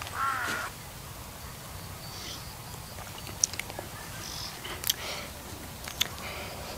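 A cow mooing, its call ending less than a second in. After that there is quiet outdoor background with three sharp clicks.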